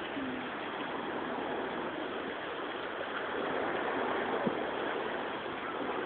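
Steady outdoor background hiss by open water, with no distinct bird calls.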